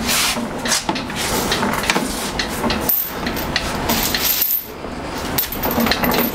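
Heavy 7.5 HP air compressor on a wheeled steel dolly being pushed across a concrete garage floor: casters rolling with repeated knocks and rattles, and a brief high squeak twice.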